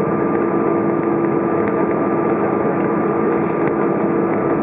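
Airbus A320 cabin noise while taxiing after landing: the engines drone steadily at taxi power, heard from inside the cabin, with a constant hum at one fixed pitch.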